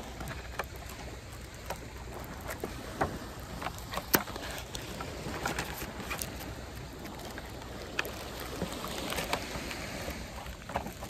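Clear plastic bag crinkling and rustling as it is handled and pulled open, with irregular sharp crackles throughout, the sharpest about four seconds in. Under it, a steady low rush of wind and surf.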